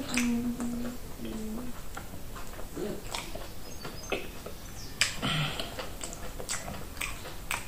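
Close-up eating sounds: a closed-mouth hum of enjoyment in the first couple of seconds while chewing fufu, then wet lip smacks and clicks, with a short squelch about five seconds in as fingers dig into thick peanut butter soup.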